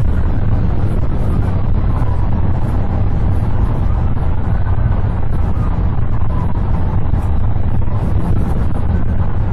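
Police cruiser driving fast on the highway in pursuit: a steady heavy rumble of road and wind noise, with a faint siren wailing slowly up and down beneath it.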